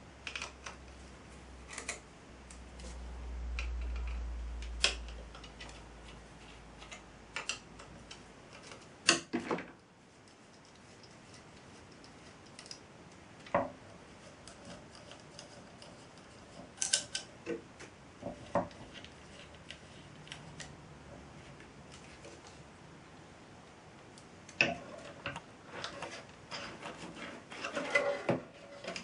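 Irregular sharp clicks and light taps, a few close together, with a low hum during roughly the first nine seconds.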